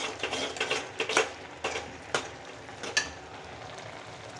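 Steel spoon stirring and scraping cooked sponge gourd (gilki) sabzi in a stainless steel pot. It starts as a run of scrapes, then a few sharp clinks of spoon on metal about a second, two seconds and three seconds in, after which only a steady hiss is left.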